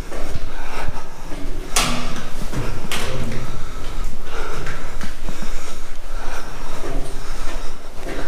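Someone climbing stairs, breathing hard, with irregular knocks and rubbing from a camera banging around as he moves.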